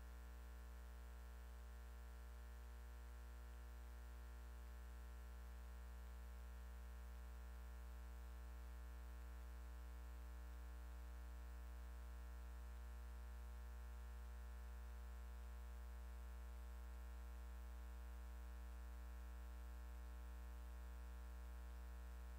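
Near silence: a faint, steady low hum with nothing else heard.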